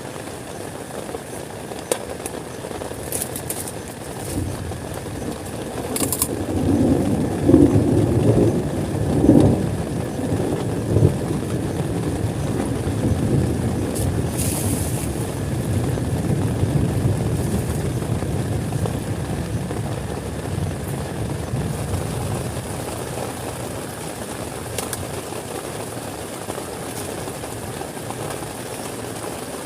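Thunder rumbling, building about four seconds in, loudest with a few cracks a few seconds later, then rolling away slowly, over a steady hiss of heavy rain.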